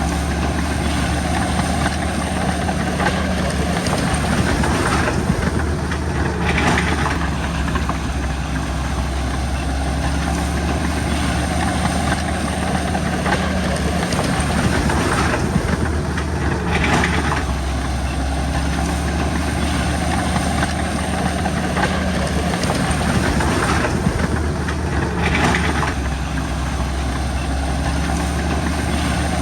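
Diesel bulldozer engine running steadily, swelling harsher three times about ten seconds apart.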